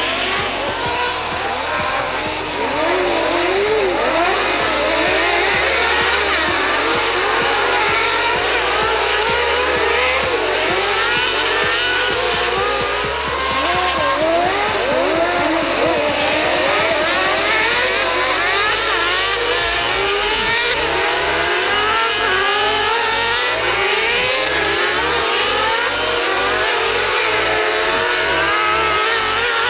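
Several racing engines revving up and down at once, their pitches rising and falling over one another as the cars race.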